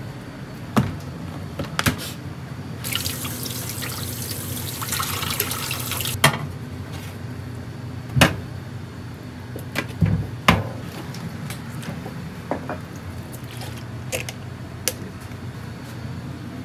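Tap water running into a stainless-steel kitchen sink for about three seconds, with a metal tray and utensils knocking against the sink several times before and after, over a steady low hum.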